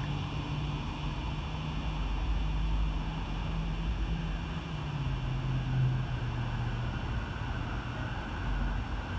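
Distant jet engines of an E-8C Joint STARS, four Pratt & Whitney JT3D turbofans, making a steady low drone whose hum drops slightly in pitch around the middle.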